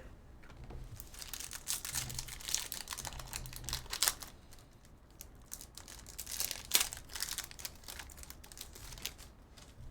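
Trading cards being handled and flipped through: a run of irregular light clicks, snaps and crinkling, busiest in the first half, with one sharper snap about seven seconds in.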